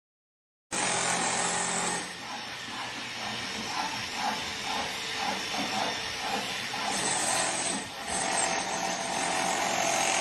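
Steady hissing noise, with faint soft pulses about twice a second through the middle.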